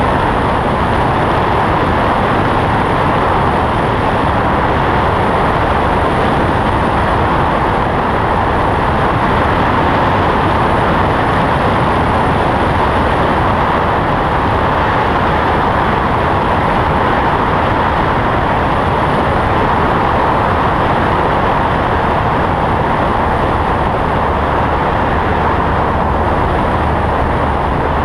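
Cessna 172's four-cylinder piston engine and propeller droning in level cruise flight, mixed with rushing airflow, a loud steady noise that does not change.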